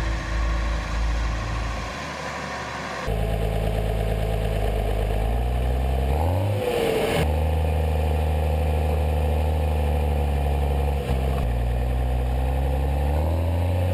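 Music fading out, then from about three seconds in the MB-trac 1000's six-cylinder diesel running steadily, heard close to its upright exhaust stack. Its pitch dips and swings back up around the middle, and it climbs slightly near the end.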